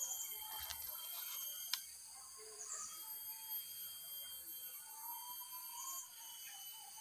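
Faint forest ambience: a steady insect drone of several high whining tones, with a few short bird chirps and a soft whistle, and one sharp click about two seconds in.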